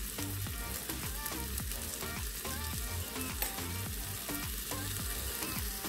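Chopped tomato, onion and bell pepper sizzling steadily in olive oil in an aluminium pressure cooker pan, stirred with a silicone spatula.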